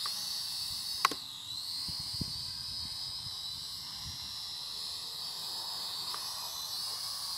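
Small quadcopter drone flying overhead: a steady high-pitched propeller whine that dips in pitch about a second in and climbs again near the end. A single sharp click about a second in.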